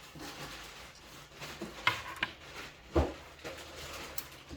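Small metal engine parts being handled and set down, with rustling and a few sharp clinks and knocks. The loudest knock comes about three seconds in.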